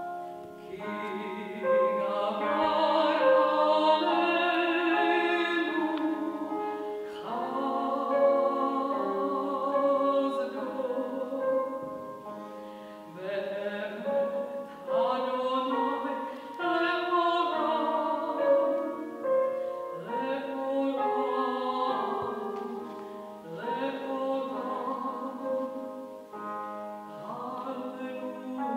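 A woman singing in classical operatic style with vibrato, accompanied by a cimbalom (concert hammered dulcimer) played with hammers, its struck notes ringing under the voice in phrases that swell and pause every few seconds.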